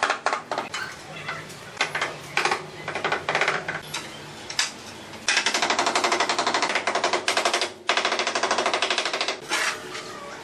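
Rubber mallet tapping ceramic tiles in quick runs of sharp knocks, several blows a second, setting the tiles down onto the counter.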